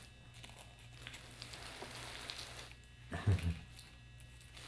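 A piglet chewing dry cereal off the floor: faint crackly munching with small clicks, over a steady low hum. A brief, louder low sound comes about three seconds in.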